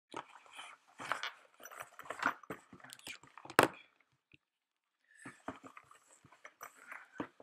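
Handling noise: irregular rustling, rubbing and knocking as the camera and helmet are moved about, with one sharp knock about three and a half seconds in and a short lull a little after.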